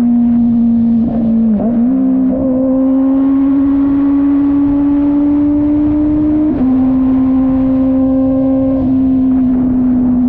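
Kove 450RR motorcycle engine pulling at high, steady revs while riding. The pitch dips sharply about a second and a half in, like a gear change, then climbs slowly, with small drops about six and a half and nine seconds in.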